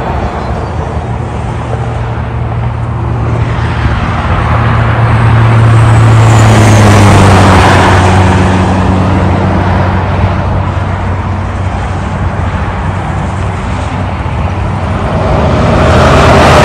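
Semi-trucks pulling double trailers passing on a highway: diesel engine drone and tyre noise swell as each rig goes by. The loudest pass is about seven seconds in, and another builds near the end.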